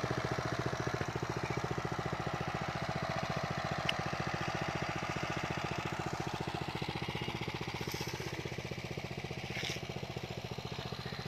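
Trâu Vàng walk-behind multi-purpose tiller's small single-cylinder engine running steadily, with a fast, even firing rhythm.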